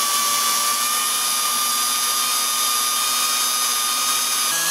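Electric drill running with a 3/32-inch bit, drilling through the Welch plug of a Tecumseh carburetor. Its motor gives a steady whine that steps up slightly in pitch near the end.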